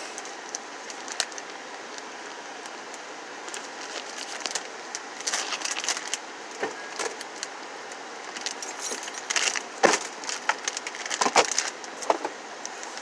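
Handling noises as a squishy toy's packaging is worked open: scattered clicks, taps and crinkly rustles, busiest in two spells around the middle and near the end.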